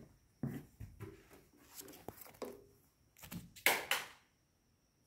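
Hands handling a power cable and a paper instruction manual: a few short rustles and light knocks, the loudest just before four seconds in, then it goes quiet.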